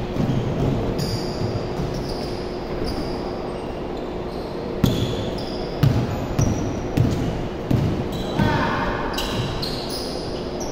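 Basketball dribbled on a hardwood gym floor, with sharp bounces about once a second from about five seconds in. Sneakers squeak on the court throughout as players run.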